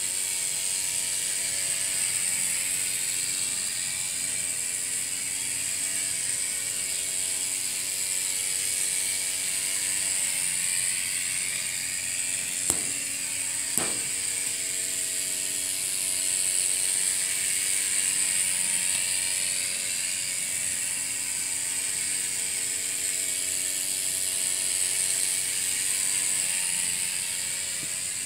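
A miniature steam speeder's one-cylinder, single-acting steam engine running fast as the car circles its track, a steady rapid mechanical rattle over a high hiss. Two sharp clicks sound about a second apart a little before the middle.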